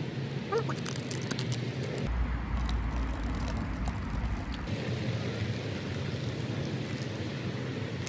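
Hot water pouring from a kettle into paper cups of instant coffee, a steady splashing trickle. A low rumble comes in for a couple of seconds in the middle.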